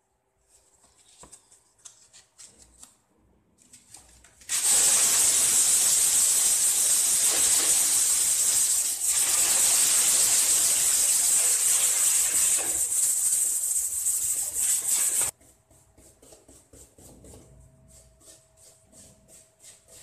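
Sandpaper rubbing by hand on a plywood speaker cabinet. About four seconds in, a loud steady hiss starts abruptly and cuts off suddenly some ten seconds later. After it come quick, even sanding strokes, about three a second.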